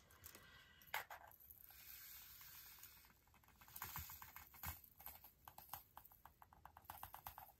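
Faint patter of diamond-painting drills sliding and clicking on a tray as they are tipped into a small storage bottle, with a quick run of tiny clicks in the second half.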